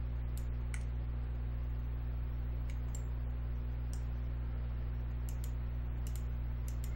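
Scattered clicks of a computer mouse, a dozen or so at uneven intervals, over a steady low electrical hum.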